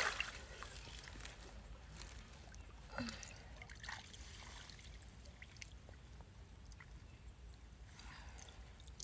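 Faint trickling and sloshing of shallow paddy water as hands and a fishing net move through it, with a couple of small splashes about three and four seconds in.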